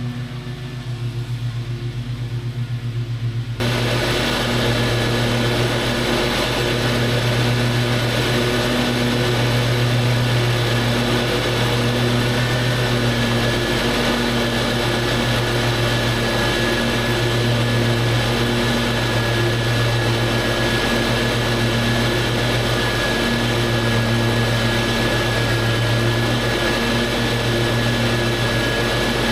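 Lawn mower engine running steadily while mowing grass. About three and a half seconds in, the sound abruptly gets louder and hissier, then holds steady.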